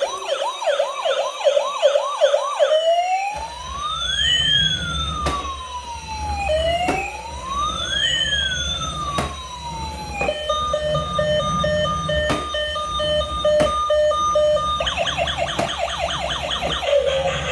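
Electronic police-style siren cycling through its patterns. It starts with a fast yelp of quick rising chirps, moves to slow rising-and-falling wails from about three seconds in, switches to a pulsed two-tone beeping about ten seconds in, and returns to the fast yelp near the end.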